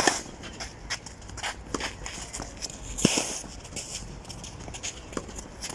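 Tennis rally on a clay court: a sharp racket-on-ball hit right at the start and another about three seconds in, with fainter footsteps and ball bounces on the clay between.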